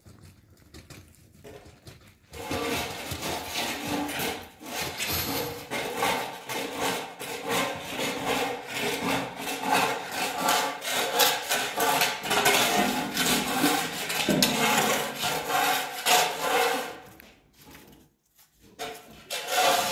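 Rough, repeated scraping strokes, a rubbing or rasping sound of something being worked by hand. They begin about two seconds in, stop briefly near the end, then start again.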